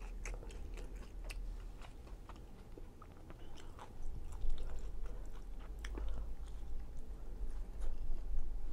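Close-up chewing of a chicken fajita in a flour tortilla: soft, wet mouth sounds with scattered small clicks and smacks, a little busier in the second half.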